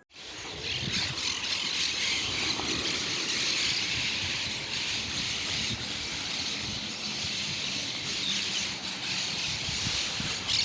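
Dense, continuous chatter of a large flock of birds, with a low rumble underneath.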